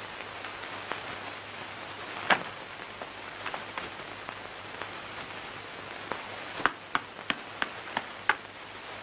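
Steady hiss of an old film soundtrack with scattered sharp taps, one loud one about two seconds in. Near the end comes a quick run of about six slaps, about three a second: hands patting flatbread dough on a round board.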